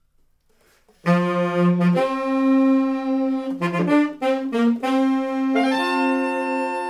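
Saxophone sextet (soprano, two alto, two tenor and baritone saxophones) playing a title theme in close harmony, coming in about a second in with held chords and a moving line, then settling on one long held chord near the end.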